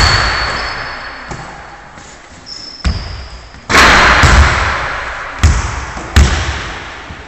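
Basketball thudding on a wooden gym floor, each hit echoing around the hall, a few separate hits in all. The loudest, a clatter with a long echo just under four seconds in, is the shot striking the hoop.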